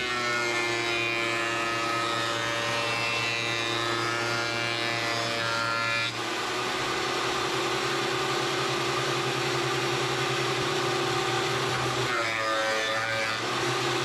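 A VEVOR 13-inch benchtop thickness planer running steadily with a shop vacuum drawing off its chips, planing a walnut board. A steady whine runs through the first six seconds of cutting, then the machine runs on in a plainer tone. Near the end the pitch sags as another pass begins.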